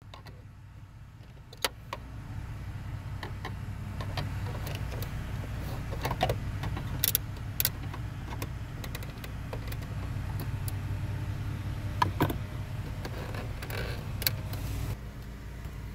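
Scattered sharp plastic clicks and snaps as a Dodge Challenger's map/dome light lens is pried with a trim tool and handled, over a steady low hum.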